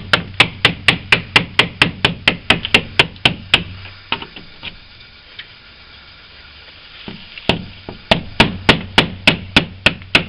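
Hammer tapping rapidly at about four blows a second, hacking old hardened glazing putty out of a wooden window frame. The tapping stops for a few seconds midway, with only a couple of stray knocks, then resumes.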